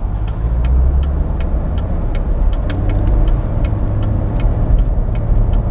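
Cabin sound of a 2019 Chevrolet Corvette Grand Sport under way: its 6.2-litre LT1 V8 and the road make a steady low rumble, with light ticks a few times a second.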